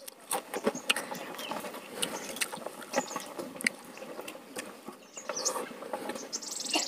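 Close-up eating sounds: chewing and lip smacks, and fingers mixing rice on a steel plate, giving many small scattered clicks. A bird chirps briefly near the end.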